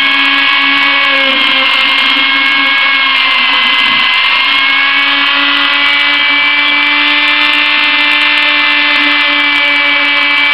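Dremel rotary tool spinning an abrasive-impregnated rubber polishing bit inside the slot of a Crosman pump air gun's tube: a steady high whine whose pitch sags slightly a few seconds in and comes back up. The bit only polishes, smoothing the edge the piston O-ring passes over.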